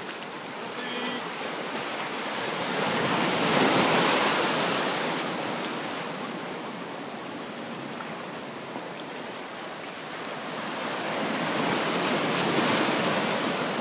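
Sea surf washing in over a shallow, stony beach, swelling loud about four seconds in and again near the end as waves break.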